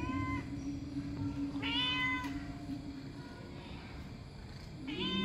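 Domestic cat meowing three times, each meow about half a second long: one at the start, one about two seconds in, and one near the end.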